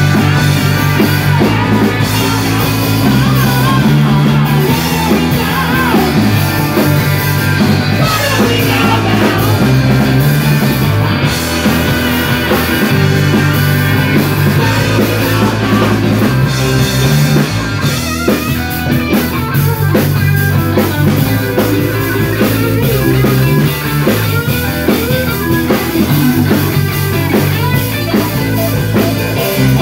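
Live rock band playing electric guitars, bass and drum kit, with a man singing lead over a steady bass line.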